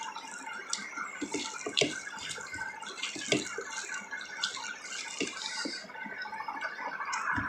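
Close-up eating sounds: wet chewing and mouth smacks with scattered short clicks, over a steady background hiss.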